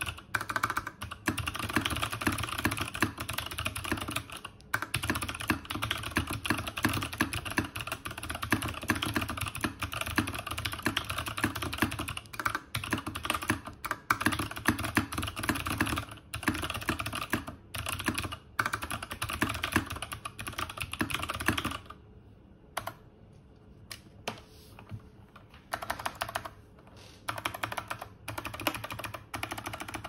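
Fast typing on a mechanical keyboard with Zeal Clickiez switches in clicky mode, in a plastic BBOX60 case: a dense stream of clicky keystrokes. About two-thirds of the way through it thins out to slower, scattered key presses with short pauses.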